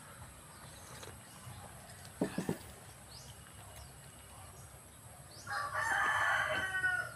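A rooster crowing once near the end, one long pitched call of about a second and a half. A few short soft knocks come about two seconds in.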